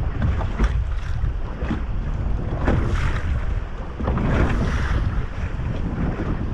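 Strong wind buffeting the microphone on open water, with irregular splashes and hiss of waves against a fishing boat.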